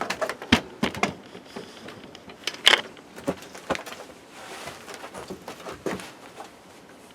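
Irregular knocks and clatter of hard objects being handled and set down, with the loudest knock a little before the middle and fewer, quieter knocks near the end.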